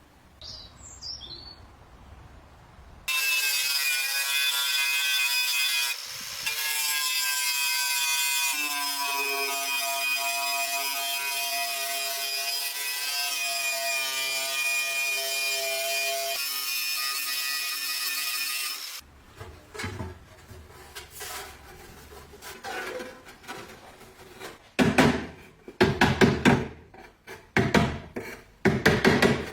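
A workshop power tool running steadily at a fixed pitch for about sixteen seconds, with its tone shifting a couple of times. It is followed by irregular scraping and sharp knocks from hand work on the part.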